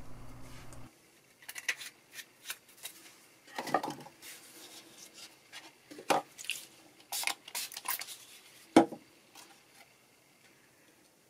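Paper template and thin plastic pickguard sheet handled by hand on a cutting mat: scattered light clicks, taps and rustles, the sharpest about nine seconds in. A low steady hum cuts off about a second in.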